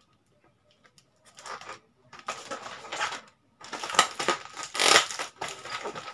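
Clear plastic packaging sleeve being handled and unwrapped, crinkling and rustling in irregular bursts, the loudest about four and five seconds in.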